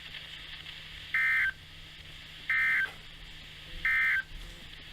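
NOAA Weather Radio EAS end-of-message signal: three short bursts of SAME digital data tones, about a second and a half apart, closing the required weekly test.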